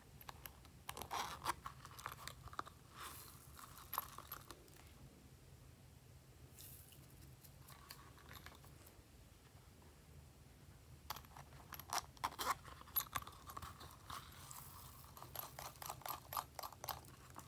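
Crisp clicks, crackles and scraping from hands handling small plastic containers and sprinkling star glitter over slime. The sounds come in three clusters with short pauses between them.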